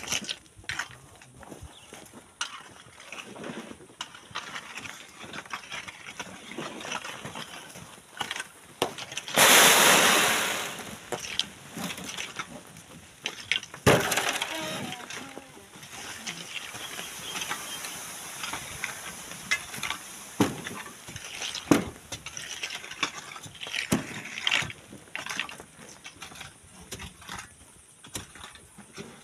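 Stones and sand worked by sand miners: scattered sharp knocks and clinks of rock throughout, and about nine seconds in a sudden rush of sand and rocks sliding down the cliff face that fades over about two seconds.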